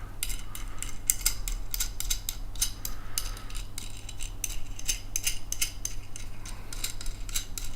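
An M10 nut being screwed by hand onto a steel threaded rod, with an irregular run of small metallic clicks and clinks from the nut and the washers on the rod.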